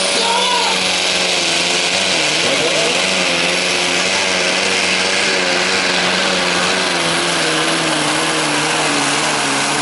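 Scania V8 truck engine running at full throttle under heavy load while pulling a weight-transfer sled. Its pitch wavers slightly and dips briefly a couple of seconds in, then holds steady.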